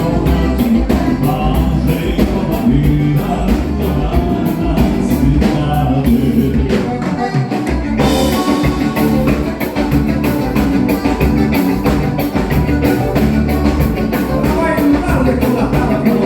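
Live gaúcho dance band playing a bugio, with drum kit and singing. About halfway through, the bass drops out briefly, then the full band comes back in.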